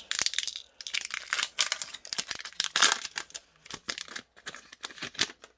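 Foil wrapper of a Pokémon booster pack crinkling and tearing as it is opened, a dense run of crackles and rips that thins out near the end.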